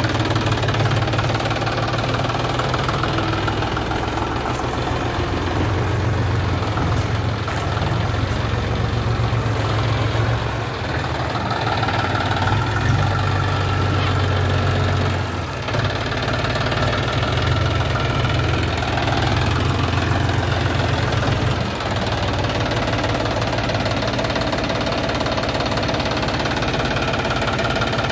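John Deere 5045 D tractor's three-cylinder diesel engine running steadily at low speed while the tractor is driven, with two brief dips in level about halfway and two-thirds of the way through.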